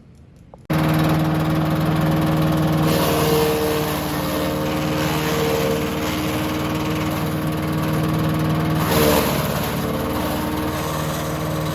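An engine running steadily with an even hum. It starts abruptly about a second in and runs unchanged.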